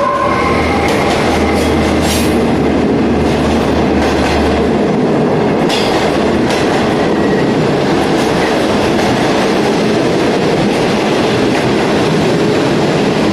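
HXD3D electric locomotive passing close by with a low steady hum, followed after about five seconds by green passenger coaches rolling past, their wheels clacking a few times over rail joints.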